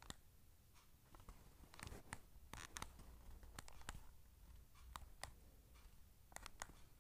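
Faint, irregular tapping clicks, about a dozen, as digits are typed on a smartphone's touchscreen keyboard.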